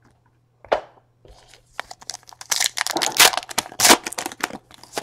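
Plastic wrapper of a baseball trading card pack being torn open and crinkled by hand: irregular crackling that starts about a second in and is loudest in the middle.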